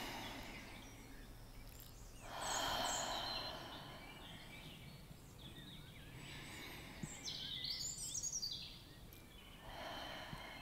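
Birds chirping, clustered about seven to eight seconds in, over soft swells of rushing noise and a low steady hum.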